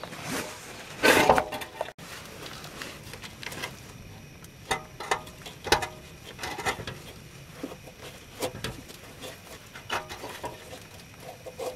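Irregular knocks, scrapes and light metallic clanks as a Toyota Solara's loosened muffler is pried and worked off its rubber hangers with a flat screwdriver, with a louder, briefly ringing clatter about a second in.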